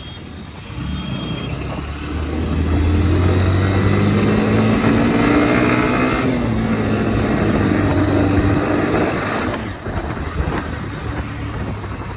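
Motorcycle engine running in road traffic, its note rising over several seconds as it accelerates, then dropping about six seconds in as it eases off.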